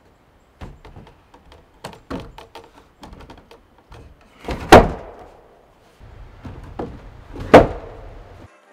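A heavy wooden log being handled onto a log wall: a run of light knocks and scrapes, then two loud wooden thuds about three seconds apart, one near the middle and one near the end.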